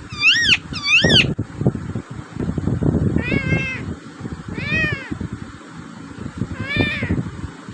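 A parrot giving five short, arched, rising-and-falling calls. The first two, close together near the start, are the loudest; three softer calls follow spaced about a second and a half to two seconds apart, over low background noise.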